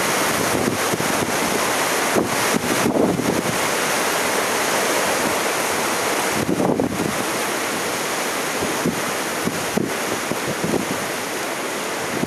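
Strong tropical-storm wind gusting over the microphone with irregular buffeting, over a steady rush of surf breaking on the shore.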